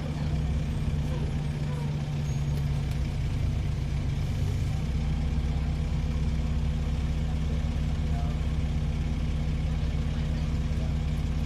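Dennis Trident 2 double-decker bus's diesel engine running steadily, with a low, even drone. The engine note shifts about five seconds in.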